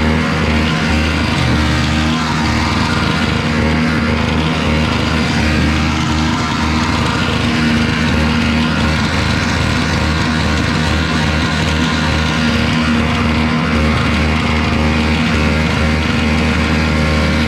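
Small gasoline snowblower engine running steadily, with rock music with guitar playing over it.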